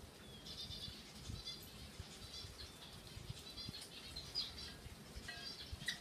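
A rock pebbler (regent parrot) bathing in a stainless-steel water bowl, fluttering its wings in the water. A run of short, high bird chirps repeats throughout.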